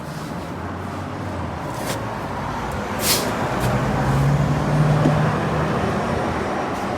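Motor vehicle engine running with a steady rumble; its low hum grows louder from about three and a half seconds in, with a couple of sharp clicks.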